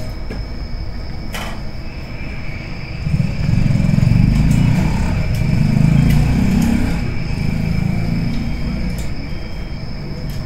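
Low vehicle rumble that swells about three seconds in and eases off toward the end, with a faint steady high whine throughout.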